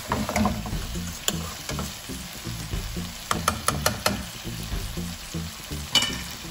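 Chicken, onions and masala sizzling in a non-stick frying pan while being stirred with a silicone spatula. The spatula knocks and scrapes against the pan, with a quick run of clicks about three to four seconds in and one sharp knock near the end.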